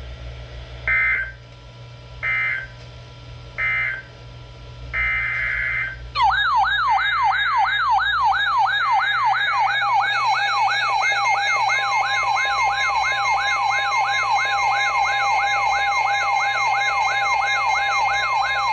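Emergency Alert System tones. First come four short, buzzy bursts of the SAME digital data signal, the last one longer. About six seconds in, a loud, warbling, siren-like alert tone starts, sweeping up and down about twice a second over steady tones.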